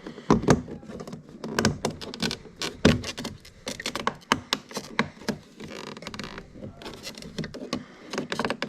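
Plastic trim removal tool prying at a plastic trim piece on a Mercedes W211 interior door panel: a run of irregular clicks, taps and knocks, with a longer scrape about six seconds in, as the piece starts to come loose.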